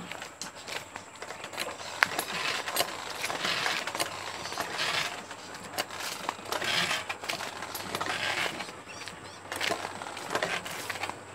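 Footsteps scuffing along a dry dirt path with the clinking and rattling of a metal backpack sprayer carried by a walking man, in uneven steps and knocks.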